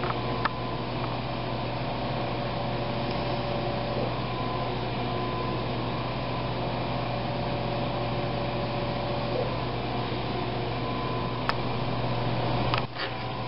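Steady low machine hum from equipment running in the room, with a few faint clicks of metal surgical instruments being handled. The hum drops out briefly near the end.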